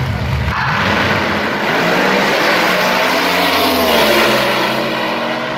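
Two drag-racing cars at full throttle down the strip, hitting full power suddenly about half a second in. Their engines' pitch climbs and drops back through the gear changes, loudest as they pass about four seconds in, then easing off as they pull away.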